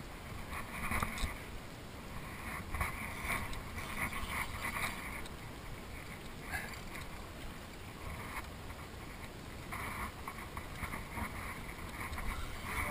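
Steady wind and water noise around a small open boat, with irregular short bursts of fishing-reel noise as a hooked tarpon is fought on a spinning rod.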